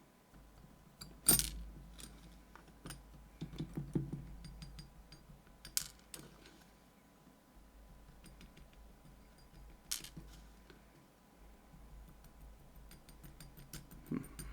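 Small metal lock parts (pins and pieces of a disassembled lock cylinder) being handled, with light scattered clicks and tinkles. There are three sharper clicks: about a second in, near six seconds and near ten.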